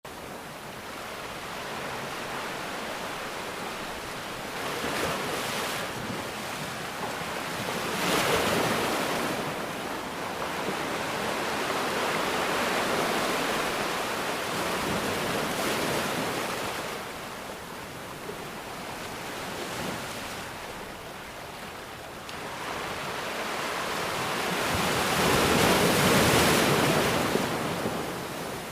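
Ocean waves breaking and washing in, a continuous rush that swells and ebbs in several long surges, the biggest near the end, with some wind on the microphone.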